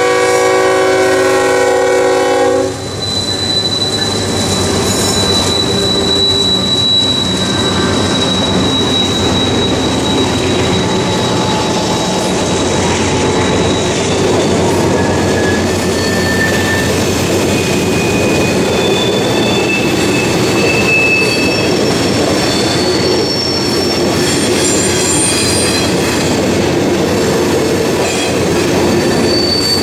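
A freight locomotive's air horn sounds a chord that cuts off about three seconds in. Then coal hopper cars roll past, with a steady rumble and clatter of wheels on rail and high wheel squeals that come and go at shifting pitches.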